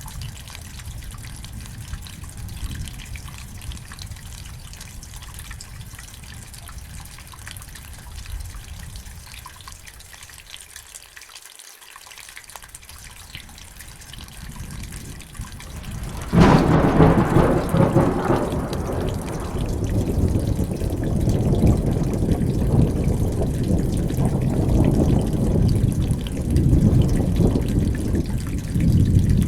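Thunderstorm: steady rain with a distant low rumble, then a sudden loud thunderclap a little past halfway that rolls on as heavy rumbling thunder to the end.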